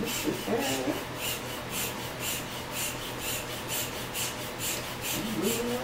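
Hand pump being squeezed steadily to inflate an exercise ball, each stroke pushing a short hiss of air, about three strokes a second.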